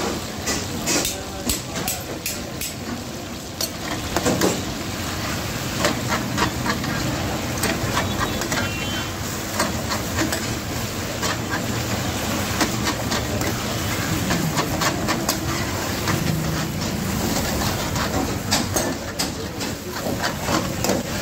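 Chicken pieces sizzling in hot oil in a steel karahi, with a metal spatula clinking and scraping against the pan again and again as they are stirred.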